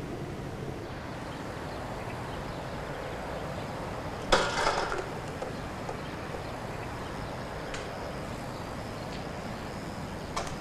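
Steady outdoor background noise, broken about four seconds in by one sudden sharp clatter, the loudest sound, lasting under a second. A faint click follows near the end.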